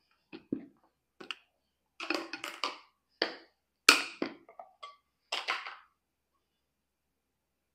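Plastic food storage containers being handled: lids unclipped and lifted off and the boxes shifted and set down, a string of small clicks and knocks with the loudest about four seconds in. The handling stops about two seconds before the end.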